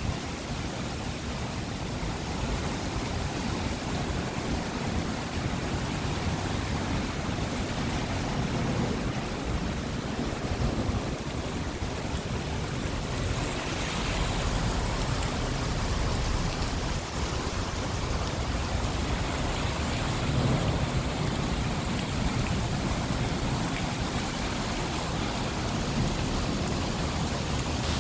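Heavy rain pouring steadily onto a flooded, paved parking deck, a dense, even rush of splashing drops.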